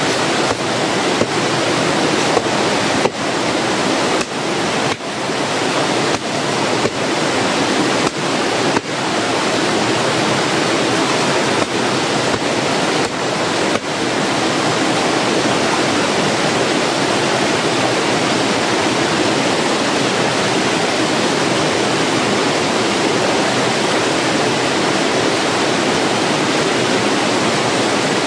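Rushing water of a small stream cascading over rocks. Over the first half, a wooden laundry paddle slaps wet clothes against a rock, about a dozen strikes mostly in pairs, stopping about halfway through.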